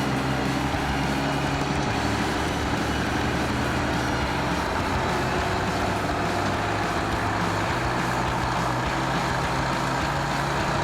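Heavy logging truck engine running steadily at an even pitch.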